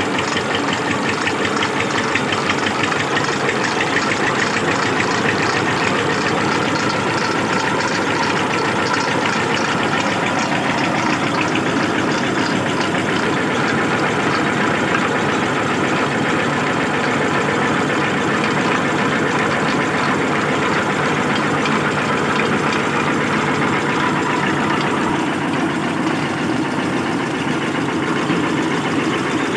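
Mobile mustard-oil expeller mill and the engine driving it running steadily, with a rapid even beat and no change in speed while it presses mustard seed.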